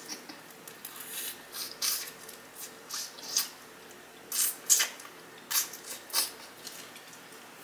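Close-up wet mouth sounds of eating seasoned chicken wings: sucking and licking sauce off fingers and pulling meat off a wing bone. A string of about ten short smacks, the loudest about two-thirds of the way through.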